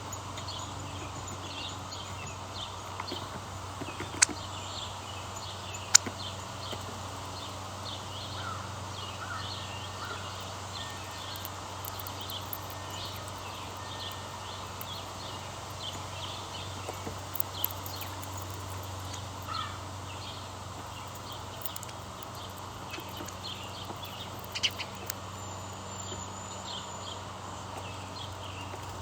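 Small birds chirping with many short, high chirps throughout, over a steady low hum. A few sharp clicks stand out, the loudest about four and six seconds in.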